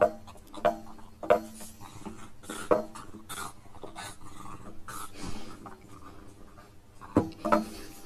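A pug carrying a long stick crosswise in its mouth, the stick knocking against the green metal gate uprights as it tries to get through. There are sharp knocks every second or so at first, a quieter stretch in the middle, and two knocks close together near the end, with the dog's own noises in between.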